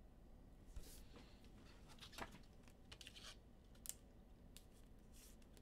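Near silence, with a few faint, scattered clicks and rustles.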